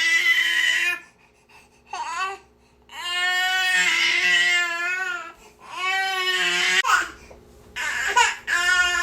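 Baby crying: a string of high wails broken by short gasps for breath, the longest wail lasting about two seconds, with shorter, choppier cries near the end.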